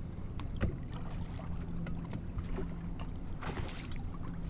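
Boat's electric trolling motor giving a steady low hum, with a few light clicks and a brief rush of wind near the end.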